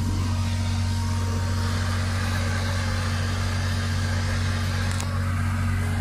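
An engine idling steadily nearby: an even, unbroken low hum, with a faint hiss above it.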